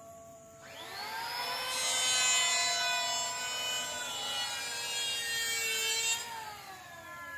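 A handheld electric power tool spins up about a second in and works on wood for several seconds, its motor whine overlaid with a rough cutting noise. It then spins down with a falling pitch near the end.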